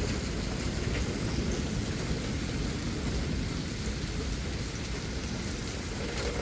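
Heavy thunderstorm rain pouring steadily, with a strong, uneven low rumble of wind.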